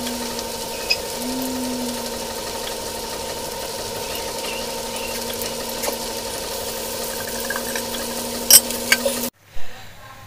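Peanuts and onions sizzling in a steel kadhai for poha, a steady frying hiss over a low steady hum, with a few sharp clinks of the pan near the end before the sound cuts off suddenly.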